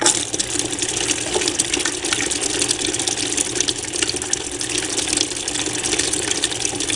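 Steady splashing and gushing as a stream of water from an aquarium pump's tube pours onto a spinning paddle wheel and into a tub of water.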